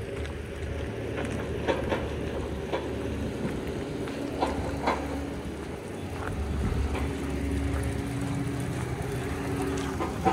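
Footsteps on gravel, a few scattered crunches, over a steady low rumble.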